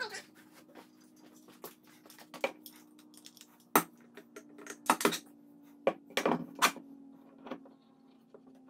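A metal pipe clamp being handled and laid across a glued-up wooden panel: a run of irregular sharp clanks and knocks, the loudest about four and five seconds in, over a faint steady hum.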